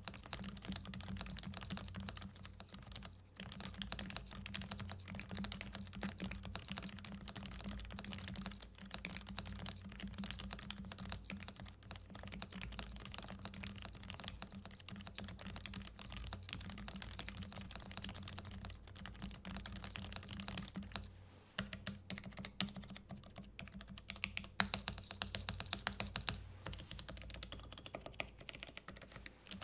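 Custom mechanical keyboard in a Noxary Evija case with a brass bottom being typed on continuously, fast runs of key clacks. There are brief pauses about three seconds in and about 21 seconds in, and sparser, louder single strokes near the end, over a steady low hum.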